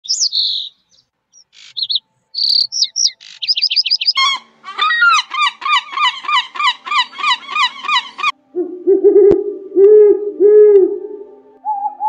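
Bird calls in three clips cut together: sparrows chirping in quick high notes, then a gull calling in a fast, even series of about two and a half calls a second, then a mourning dove's low cooing, a longer note followed by three short coos.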